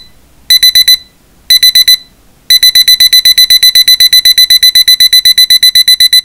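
Digital alarm clock beeping with a high, steady-pitched tone: groups of four quick beeps about once a second, then from about two and a half seconds in an unbroken run of fast beeps.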